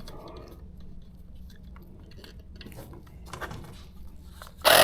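Faint handling clicks and rustles, then near the end a portable electric tire inflator suddenly starts, its motor running with a loud, steady buzz as it pumps up the e-bike tube.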